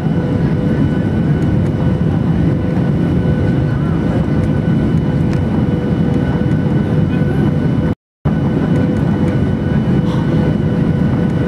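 Cabin noise of a Boeing 737-800 on final approach, heard from a window seat beside the engine: the CFM56-7B engines' steady roar with a few steady whining tones above it. The sound cuts out briefly about eight seconds in.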